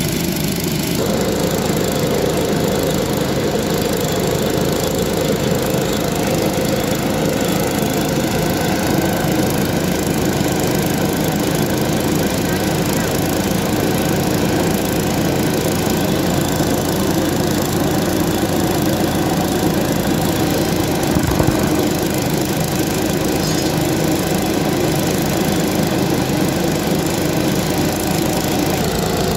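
Small portable engine of a trackside power unit running steadily; its note gets heavier about a second in. One short knock about two-thirds of the way through.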